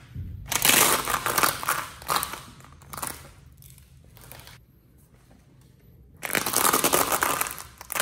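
Crisp swirl biscuits crunching and crackling as sneaker soles stamp on them against a tile floor. There are two bouts of crunching, a longer one of several stamps starting about half a second in and a shorter one about six seconds in.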